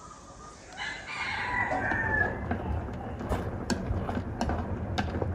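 A rooster crows once, about a second in, over chicken pieces frying in hot oil in a wok, the oil spitting and popping with sharp crackles every half second or so.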